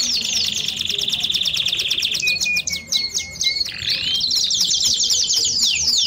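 Belgian canary singing. It opens with a fast trill, moves into two held whistled notes about two seconds in, the second a little lower than the first, then breaks into a quick run of falling notes.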